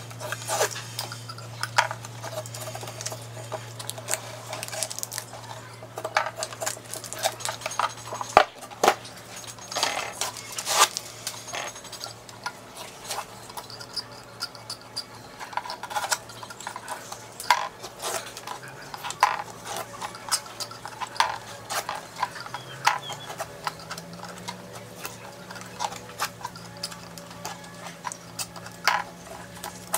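Utility knife blade scraping and cutting along the edge of an MDF board, trimming it flush with a speaker cabinet: irregular clicks and short scrapes throughout.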